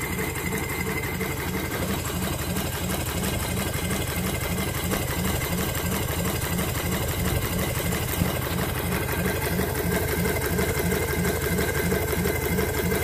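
Stuart Turner Swan twin-cylinder model marine steam engine running steadily on compressed air, with a fast, even mechanical beat.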